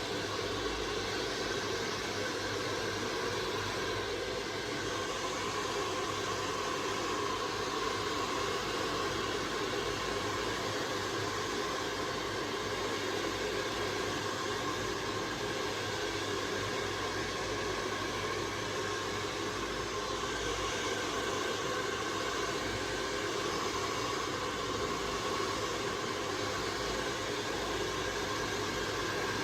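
Philips handheld hair dryer running steadily, blowing air through wet hair: a constant hiss with a faint steady whine.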